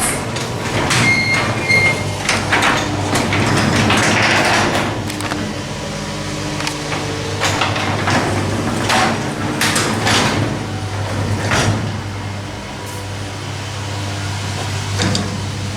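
Electric garage door opener running, the sectional door travelling along its tracks with a steady motor hum and rattles and clicks from the panels and rollers. Short high beeps sound near the start.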